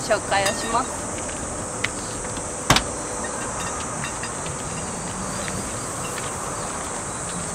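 Steady high-pitched drone of insects, with a single sharp click a little under three seconds in.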